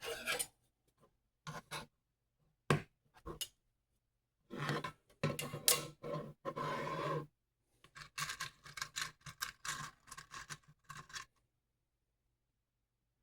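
Scraping and rubbing in short bursts from hand work on 3D-printed plastic parts, with a longer spell in the middle and a run of quick strokes near the end.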